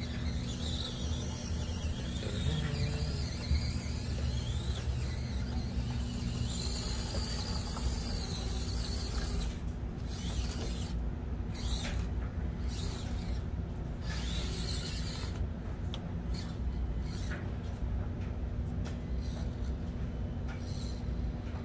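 Axial Deadbolt RC rock crawler's electric motor and geared drivetrain whirring steadily as it crawls slowly over the course, with scattered clicks and creaks from about halfway through.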